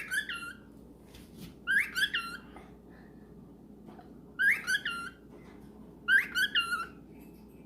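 Cockatiel giving short, high chirping whistles in four quick bursts, each about two seconds apart.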